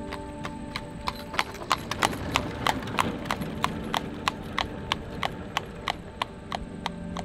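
A horse's hooves clip-clopping on asphalt as it pulls a buggy past, a steady beat of about three strikes a second, loudest a couple of seconds in and then fading as it moves off.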